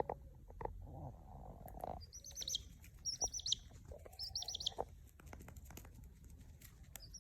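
Bird chirping: three short runs of rapid high chirps about a second apart, with scattered faint clicks and knocks.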